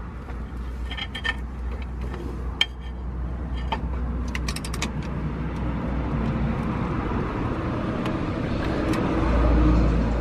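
Metal clicks and knocks of a hand wrench on the flywheel bolts of a Ford Focus ST, as the bolts are worked loose. Under them runs a rough mechanical noise that grows louder to a peak with a low rumble about nine seconds in, then eases.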